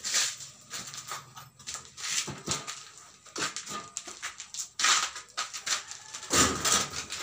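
Irregular clicks, knocks and scrapes from handling a window frame and building materials, with louder knocks about five seconds in and near the end.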